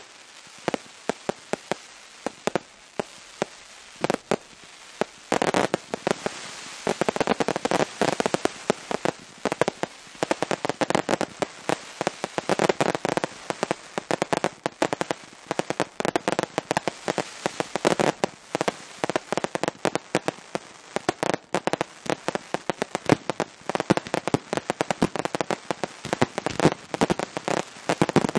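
Fireworks going off: separate sharp bangs at first, then from about five seconds in a dense crackle with rapid shots from ground-fired cakes and bursting stars, keeping up thickly to the end.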